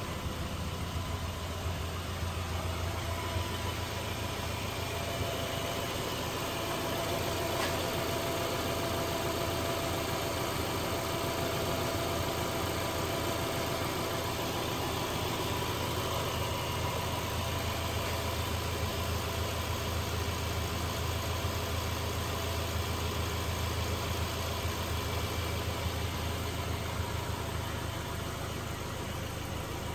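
2009 Subaru Forester's 2.5-litre flat-four engine idling steadily.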